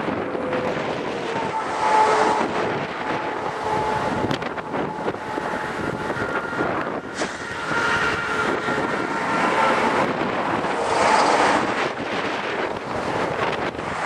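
Strong wind buffeting the microphone, rising and easing in gusts, loudest about two seconds in and again around eight and eleven seconds in.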